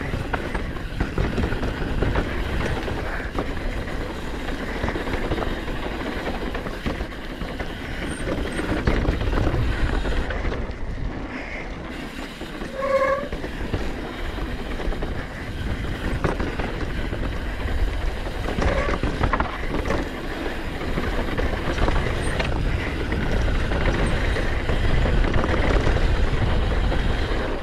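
Downhill mountain bike riding fast down a dirt trail: knobby tyres rolling over dirt and loose rock, with the bike's chain and frame rattling in constant knocks and heavy wind rumble on the microphone. A brief squeak sounds about 13 seconds in.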